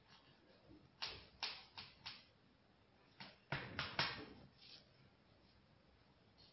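Knife cutting raw baklava in a metal baking tray: quiet clicks and taps as the blade works against the tray, four near the start of the second second and a louder cluster around three and a half to four seconds.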